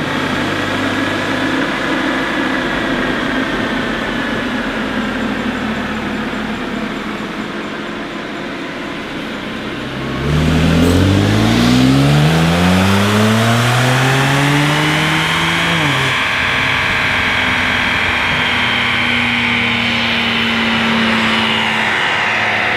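BMW N54 twin-turbo inline six, fitted with a catless downpipe, running on a chassis dyno. About ten seconds in it makes a full-throttle pull in third gear: the engine note climbs steadily and gets louder for about six seconds, with a high whine rising alongside. The climb ends abruptly and the engine settles to a steadier note.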